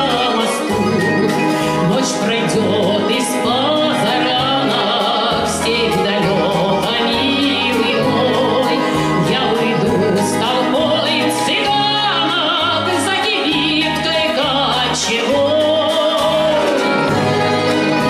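A woman singing a Russian romance with wide vibrato, accompanied by an orchestra of domras and balalaikas, with a regular low plucked bass line underneath.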